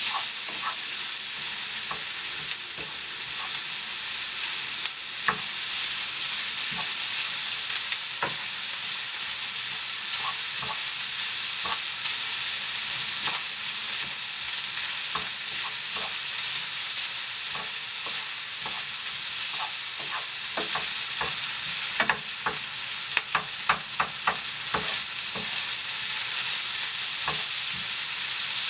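Sliced onion and bacon bits sizzling steadily in a frying pan while a wooden spatula stirs and scrapes them, with scattered clicks of the spatula against the pan that come in a quicker run late on.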